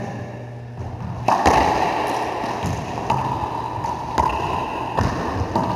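Racquetball rally: the hard rubber ball struck by racquets and smacking off the court walls and floor, about half a dozen sharp hits, the first about a second in, each ringing in the enclosed court.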